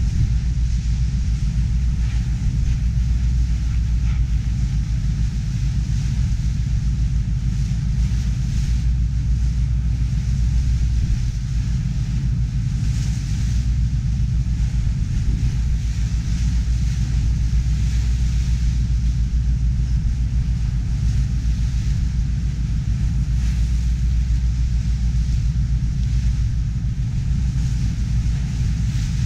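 Ferry boat's engine running at steady cruising speed with a deep, even drone, over a hiss of wind and water rushing past the hull.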